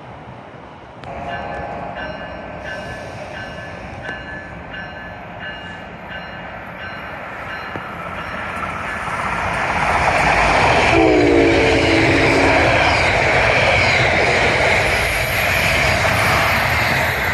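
New Jersey Transit trains: a bell rings steadily in the first several seconds, then an ALP-46 electric locomotive's train rushes past loudly on the rails. A deep multi-note horn blows for about two seconds midway through the pass, its pitch dropping slightly.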